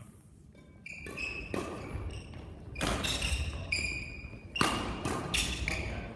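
A badminton rally: rackets hit the shuttlecock with sharp cracks, about four times, and sneakers squeak briefly on the court floor between the shots.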